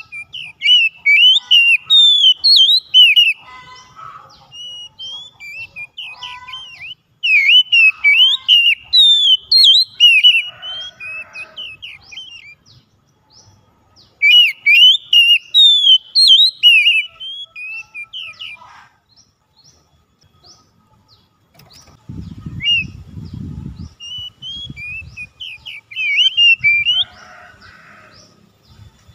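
Oriental magpie-robin singing: loud phrases of rapid, varied whistled notes, each burst lasting about three seconds with pauses between them, and softer phrases near the end. A brief low rumble comes about two-thirds through.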